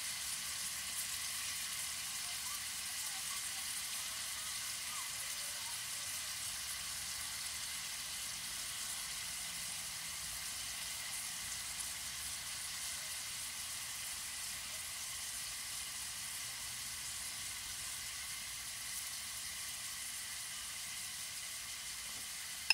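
Cubes of beef heart sizzling steadily as they fry in rendered beef fat in a wok.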